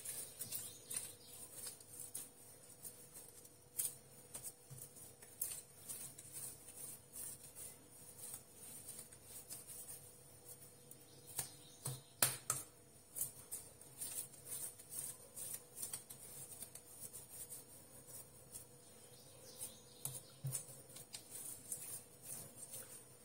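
Faint, irregular soft taps and squishes of oiled hands pinching off and shaping msemen dough into balls on a granite slab, with a sharper click about twelve seconds in.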